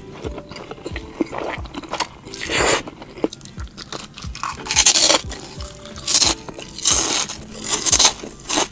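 Close-miked eating of spicy instant noodles: chewing, with a series of short, loud bursts of slurping and smacking.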